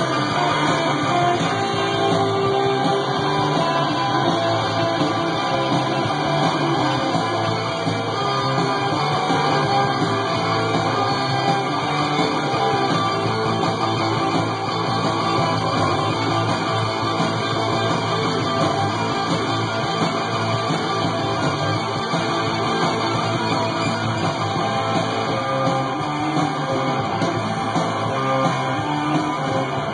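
Guitar-driven punk rock played from a 7-inch vinyl record spinning on a turntable.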